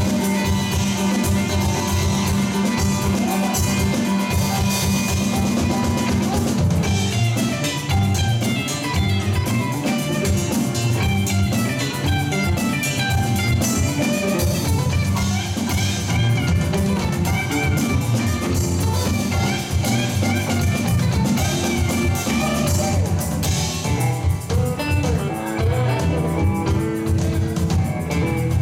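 Live rock band playing an instrumental section: electric guitar lead lines over bass guitar, drum kit and keyboard.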